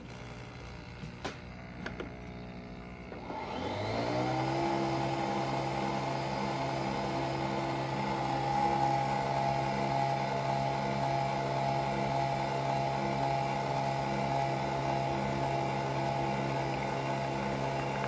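Nespresso Vertuo Next coffee machine brewing: a few light clicks, then about four seconds in its motor spins up with a rising whine and settles into a steady mechanical hum.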